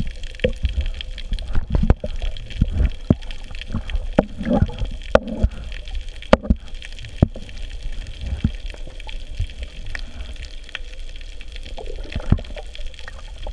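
Underwater sound picked up through a camera housing near scuba divers: bubbling and gurgling from their regulators over a low rumble, with many scattered sharp clicks and knocks.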